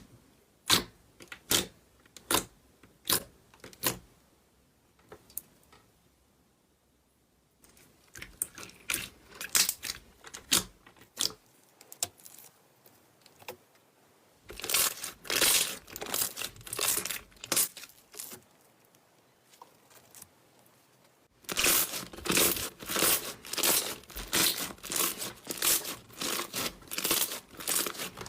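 Slime being squeezed and pressed by hand, giving crinkly crackling pops and snaps. They come singly at first, then in dense runs, the last at about two a second.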